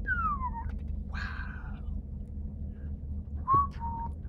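Steady low hum of a ship heard from inside its superstructure, with high squeaks over it: a falling squeal at the start, and a sharp squeak with a knock about three and a half seconds in that holds a short steady tone.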